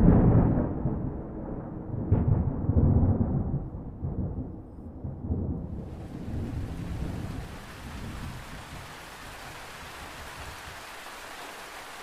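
Thunder rumbling, starting suddenly, swelling again about two seconds in, then dying away over several seconds. Steady heavy rain hiss comes in about halfway through and carries on.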